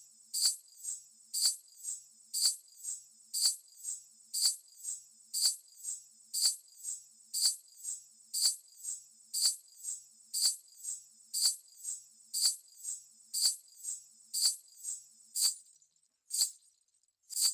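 Ghungroo, clusters of small brass ankle bells, jingling in a steady rhythm of about two shakes a second, slowing to about one a second near the end.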